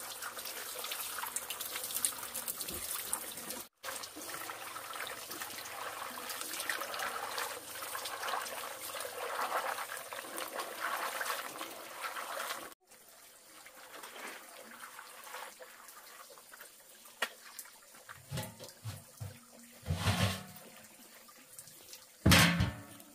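Water running and splashing steadily. It then turns quieter, with a few short knocks in the last seconds, the loudest just before the end.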